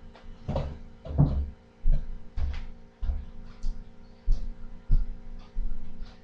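A series of irregular knocks and thumps, about a dozen in six seconds, over a steady low electrical hum.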